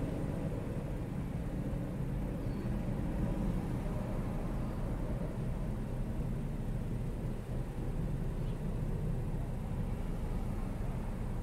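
A car idling while stopped at a traffic light: a steady low rumble, with the wash of city street traffic around it.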